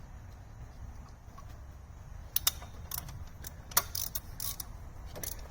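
Ratchet wrench clicking in short, irregular strokes, tightening the bolts on the transmission's shift-shaft housing, over a low steady hum.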